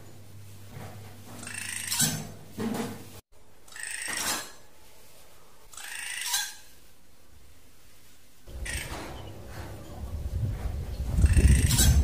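Drongo calls: short, harsh notes at irregular intervals of one to two seconds, with a longer pause in the middle. A loud low rumble comes in over the last few seconds.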